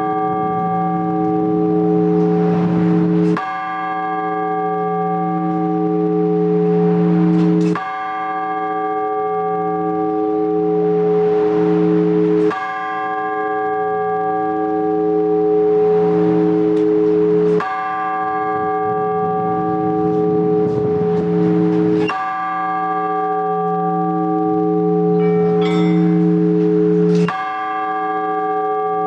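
A large Orthodox church bell tolled in the blagovest manner: one bell struck slowly and evenly, about every five seconds, six strokes here, each ringing on with a long hum until the next.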